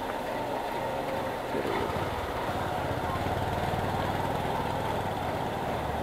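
Petrol station fuel dispenser pumping petrol into a motorcycle tank: a steady motor hum, slightly louder from about a second and a half in.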